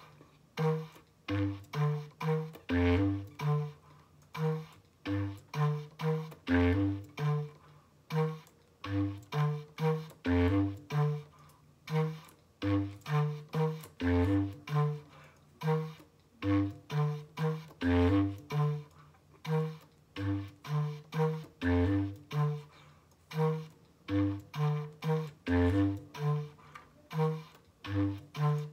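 Bass clarinet playing a rhythmic passage of short, detached notes, low notes alternating with higher ones.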